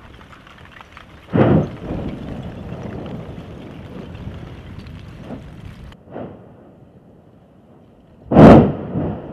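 Strombolian explosions from Mount Etna's Southeast Crater: a sharp bang about a second and a half in, followed by several seconds of rumbling. A smaller bang comes around six seconds in, and the loudest blast near the end.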